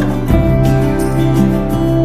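Gentle instrumental background music with plucked guitar, its notes held; a new chord comes in about a third of a second in.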